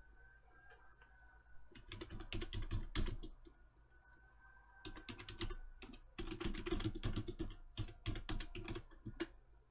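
Computer keyboard being typed on in quick runs of keystrokes, entering a web search query. There is a run about two seconds in, a short one near five seconds, and a longer one from about six to nine seconds.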